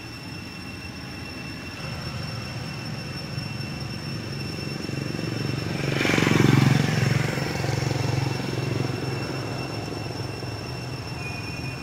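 A steady low motor rumble that swells to its loudest about six seconds in and then fades, like a motor vehicle passing, with a faint steady high whine throughout.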